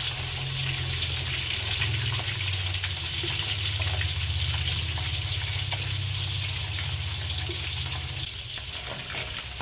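Small mackerel (ikan keranjang) deep-frying in hot oil in a wok: a steady sizzle as a freshly added batch cooks, strongest just after the fish go in. A low hum runs underneath and stops about eight seconds in.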